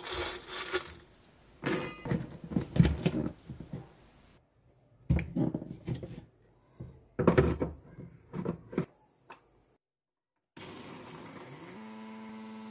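Puffed lotus seeds (makhana) clattering as they are tipped by hand into a steel mixer-grinder jar, with knocks of the jar and lid being handled. About ten seconds in, an electric mixer grinder starts, its motor rising in pitch and settling into a steady whining hum as it grinds the makhana to powder.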